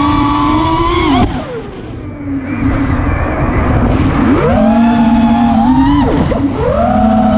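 Lumenier 2206 2350kV brushless motors and 5-inch tri-blade propellers of an FPV racing quadcopter whining under throttle. The pitch holds high, drops sharply about a second in as the throttle is cut, climbs again about four seconds in, dips briefly near six seconds and comes back up.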